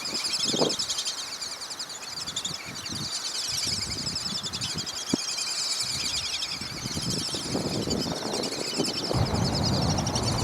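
A large flock of black-bellied whistling ducks calling together: a dense, continuous chorus of high, overlapping whistles. Wind gusts on the microphone add a low rumble that grows heavier near the end.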